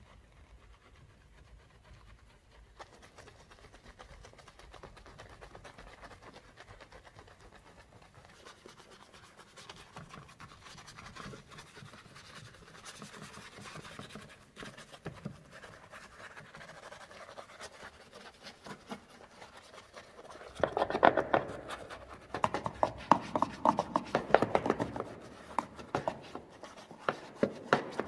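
A small detailing brush scrubbing through soapy foam around a car's fuel filler door. It is faint at first, then from about twenty seconds in the strokes turn loud, rapid and scratchy.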